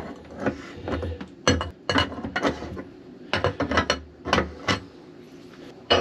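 Irregular metallic clicks and knocks, in clusters, as the brass retaining nut on a shower tap is worked loose to free the tap cartridge.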